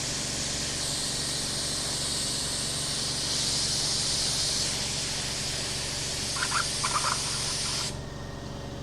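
Finex FX100 spray gun spraying paint thinner in a test pass to check its fan pattern after the fan was opened wider: a steady high hiss that cuts off suddenly when the trigger is let go, about eight seconds in.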